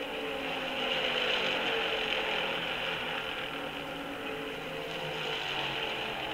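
V8 stock-car engines at racing speed passing through the tri-oval. The sound swells to a peak about a second in, and the engine notes slide down in pitch as the cars go by. It is played from an old record.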